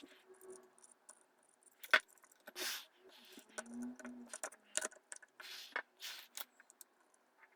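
Irregular sharp clicks, taps and short scraping rustles of small hard objects being handled.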